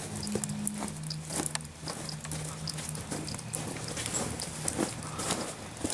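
Irregular patter of water dripping from melting icicles, many small drips at uneven intervals, over a faint low steady tone.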